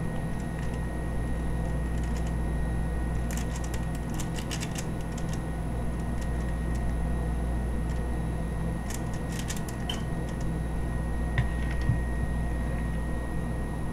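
Faint scraping and light clicking of a metal utensil against a foil-lined pan as sticky scone batter is spooned and pushed into place, in two short clusters about three and nine seconds in, over a steady low hum.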